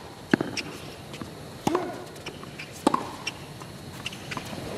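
Tennis ball struck back and forth in a baseline rally on a hard court. There are three sharp racket hits about a second and a quarter apart, with lighter ticks in between.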